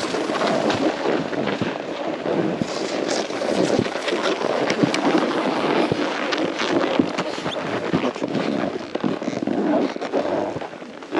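Snowboard sliding and crunching through sticky snow: a steady noisy rush full of sharp crackles and clicks.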